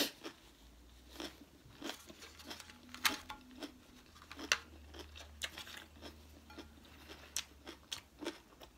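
Close-miked chewing of a mouthful of sushi, with wet mouth clicks and smacks coming at irregular moments.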